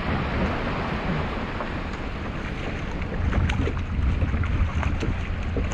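Wind buffeting the microphone on an open boat, with water sloshing against the hull; the low rumble of the wind grows stronger about three seconds in.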